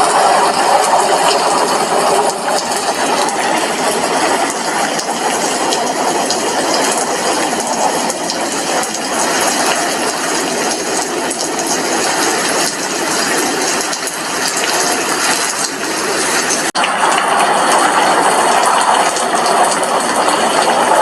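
Rain falling on a glass window: a steady, dense patter of drops that cuts out for an instant about three-quarters of the way through.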